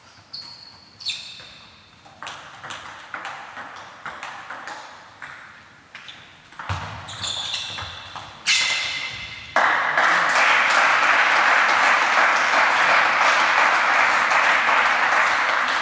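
Table tennis rally: the celluloid ball clicks sharply off bats and table, each hit ringing briefly with a high ping, every half second or so. A little over halfway through, the rally stops and a loud, steady rushing noise comes in suddenly and holds to the end.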